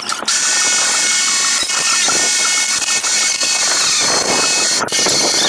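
Electric arc welding: the steady, loud hiss and crackle of the arc. It breaks off for an instant near the end and restrikes at once.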